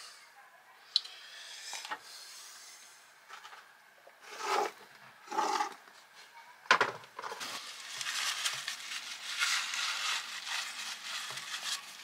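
Engine parts and hand tools being handled, with a few clicks and knocks, then steady scraping from about seven seconds in as an engine part's mating surface is rubbed clean and smooth for a new gasket.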